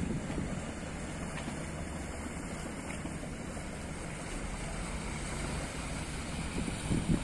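Excursion boat's engine droning low and steady as it passes close by, over water lapping, with gusts of wind buffeting the microphone near the start and just before the end.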